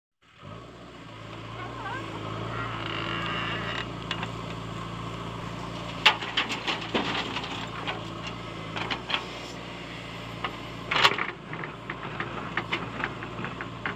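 JCB 3DX backhoe loader's diesel engine running steadily as the backhoe digs and loads soil into a tractor trolley, with sharp knocks and thuds of soil and the bucket hitting the steel trolley, the loudest about six and eleven seconds in.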